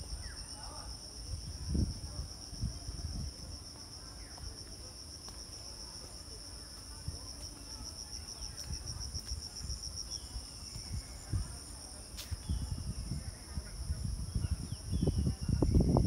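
A steady, shrill insect chorus with a fast pulsing buzz and a second, higher ringing tone. Low rumbling thumps on the microphone get louder near the end.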